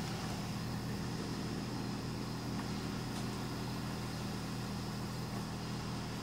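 4x4 engine running steadily at low revs while the vehicle crawls up a rocky off-road trail.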